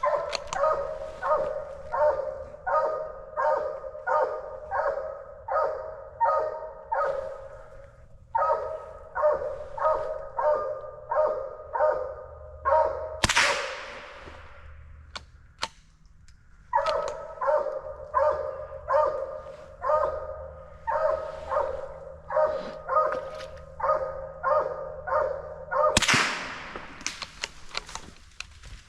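A coonhound barking steadily in a rhythmic chop, nearly two barks a second, in three long runs with pauses between. Two brief, loud rushes of noise break in, about halfway through and near the end.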